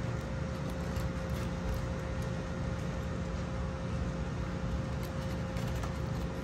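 Steady low hum and hiss with one faint constant tone running through it, and a few faint clicks over it a little after the start and again about five seconds in.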